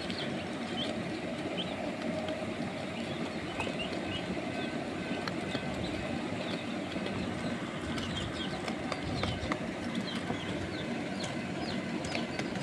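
Young chicks peeping: short, high, thin chirps scattered throughout, over a steady low rumble.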